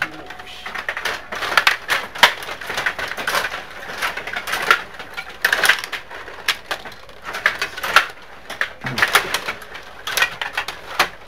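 Table hockey game in play: plastic players on their rods clacking and rattling against the puck and the table's boards in quick, irregular clicks.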